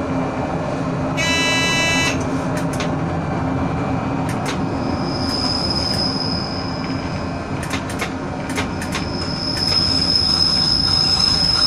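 Train rumbling slowly into a station, with a thin high wheel squeal that sets in twice and holds steady as it slows, and scattered clicks from the wheels over the track. A short shrill signal tone sounds about a second in.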